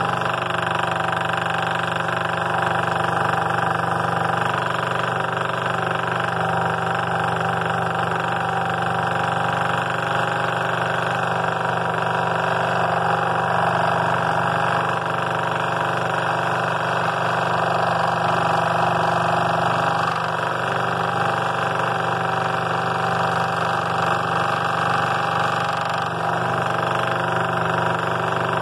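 Scroll saw running with a non-reverse tooth blade cutting through a thick block of cedar: a steady motor hum under the blade's continuous rasp, unchanging throughout.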